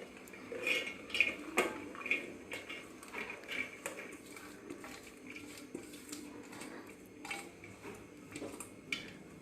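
A spoon clinking and scraping against steel vessels while cooked chana dal is spooned into a mixer-grinder jar: a string of light knocks, most frequent in the first few seconds and sparser after.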